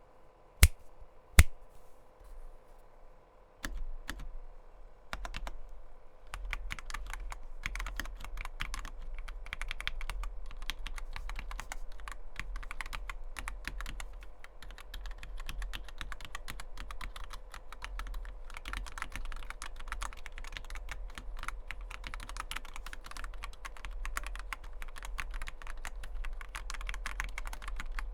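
Custom mechanical keyboard with stock, unlubed Gateron Milky Yellow linear switches, an ABS plastic case and MOA-profile keycaps being typed on. Two loud single key presses about a second in and a few scattered ones, then fast continuous typing from about six seconds in.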